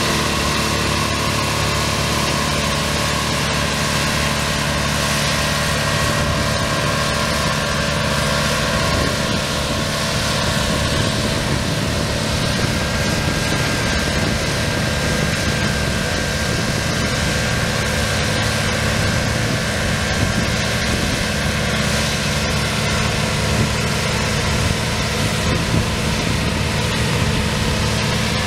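Small garden tractor engine running steadily at an even pitch.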